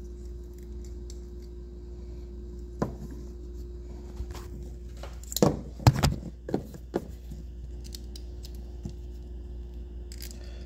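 Handling noise from a camera being moved and fitted onto a mount: a single knock about three seconds in, then a flurry of clicks, clatters and scrapes around five to seven seconds in, over a steady low hum.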